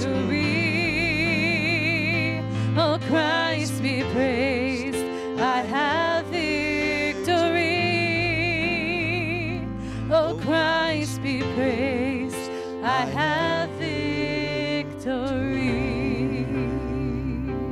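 Contemporary worship song with no words sung: a lead melody that scoops up into each note and holds it with vibrato, over steady bass and keyboard.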